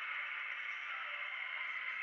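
Steady muffled hiss of wind and road noise from a motorcycle riding on a dirt road, picked up by a camera mounted on the bike.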